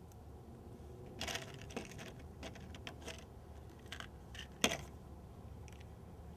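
Light, irregular metallic clicks and clinks of steel needle roller bearings being set into the bore of a Spicer T-90 transmission cluster gear, with one sharper knock a little before the end.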